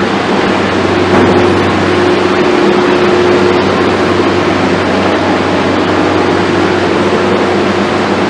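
Steady loud hum and hiss of running machinery, with a constant low drone underneath and no change throughout.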